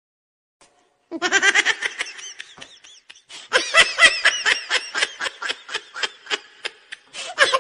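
Cartoon character laughing in a rapid run of short, pitched pulses. The laughter starts about a second in, breaks off briefly around the three-second mark, and picks up again in a longer run.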